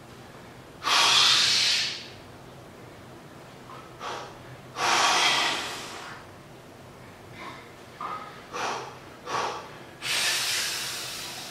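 A man's heavy, forceful mouth breathing while straining through a near-maximal barbell curl set. There are long, loud breaths about a second in, about five seconds in and again near the end, with short, quick breaths between.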